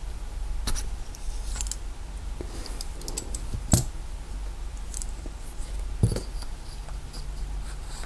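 Small clicks and taps of a brass mortise lock cylinder and its plastic plug follower being handled, over a low steady hum. A sharper click comes a little before halfway and another about three-quarters of the way through.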